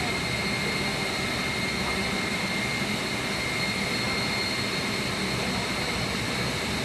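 Heavy machinery running steadily: a constant loud broad rumble and hiss with a thin high whine held on one pitch throughout.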